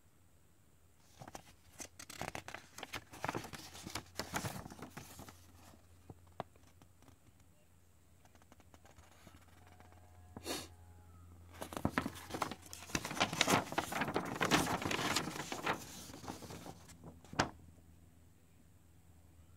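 A folded paper instruction manual being handled and unfolded: bursts of paper rustling and crinkling, loudest a little past halfway, with a single sharp snap of paper near the end.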